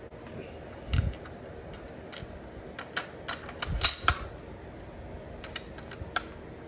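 Bolt of a bolt-action rifle worked by hand: a dull knock about a second in, then a run of sharp metallic clicks, loudest a little after the middle, as an unprimed, powderless dummy round is chambered and the bolt is closed to check whether the bullet touches the lands.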